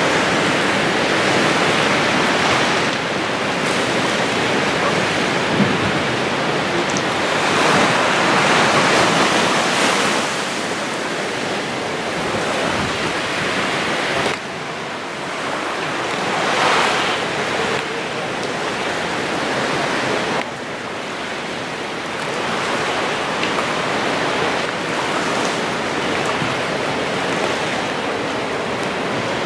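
Small waves washing onto a sandy beach, a steady rushing hiss that swells and eases every few seconds.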